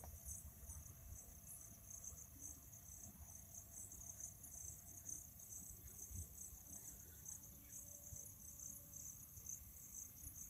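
Faint high-pitched insect chirping, a steady chorus of rapid repeating pulses, over a faint low rumble.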